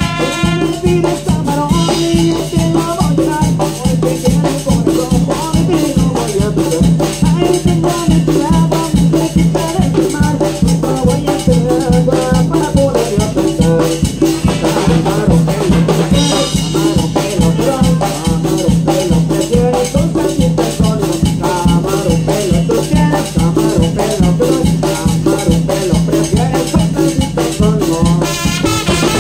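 A Yucatecan brass band playing a dance tune over a steady, fast drum beat, with horns sounding over the rhythm.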